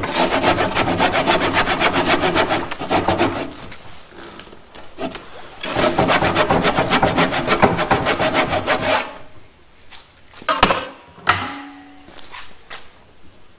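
A hand-held tool cutting into cedar wood in two bouts of fast, even strokes, each about three seconds long, followed by a few sharp knocks on the wood.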